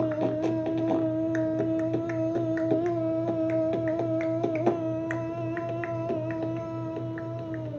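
A voice humming one long, steady note that slides down in pitch near the end, with small taps and clicks throughout.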